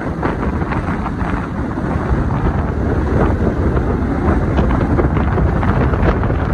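Wind buffeting a phone's microphone, filmed from a moving car: a steady, loud rumbling rush.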